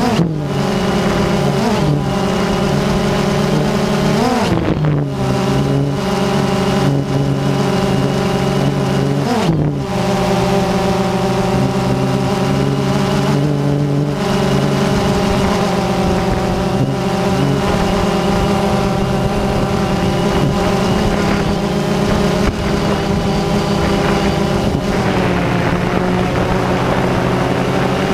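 DJI Phantom quadcopter's motors and propellers buzzing steadily, heard from the camera on board. The pitch briefly dips and rises again about four and a half and nine and a half seconds in.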